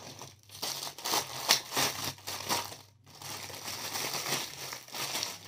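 Thin clear plastic packaging crinkling and crackling in the hands as it is handled and opened. The sound comes in a continuous run of crackles with a short break a little past halfway.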